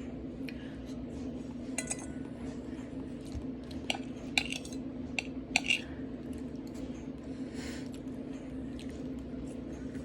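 Cutlery clinking against a plate during a meal, a handful of sharp clinks, most between about four and six seconds in, over a steady low hum.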